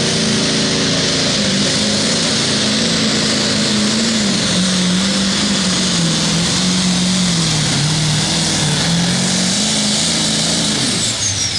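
Pro Farm pulling tractor's turbocharged diesel engine at full throttle hauling a weight-transfer sled, its note sagging under the load and then recovering, with the rear tyres spinning in the dirt. Near the end a high whine falls away quickly as the run ends.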